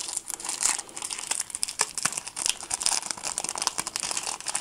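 Foil wrapper of a Panini Adrenalyn XL trading-card pack being torn open and crinkled in the hands: an irregular run of crackles and rustles.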